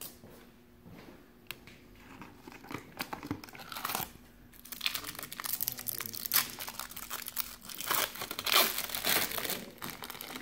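Foil wrapper of a 1993-94 Fleer Ultra basketball card pack being torn open and crumpled by hand, a crinkling that starts about three seconds in and grows louder and busier through the second half. Before it, a few soft ticks of cards being handled.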